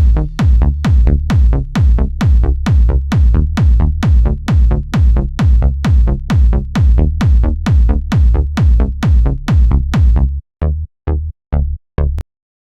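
Italo dance music ending: a drum-machine kick drum beats about twice a second while the higher sounds fade away. Near the end only four short, clipped kicks are left before the music stops.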